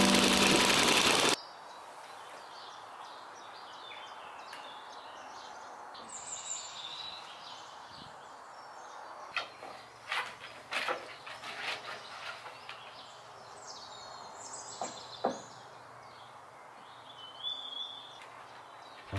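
A running small tiller engine, mixed with music, cuts off suddenly about a second in, leaving quiet outdoor ambience with birds chirping now and then and a few short sharp clicks.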